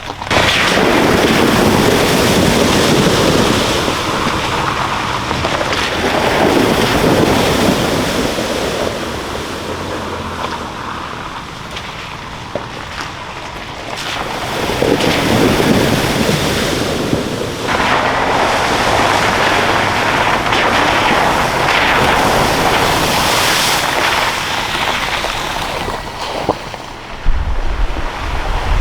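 Wind buffeting the microphone, a loud rushing noise that swells and eases in gusts every few seconds, with a low rumble near the end.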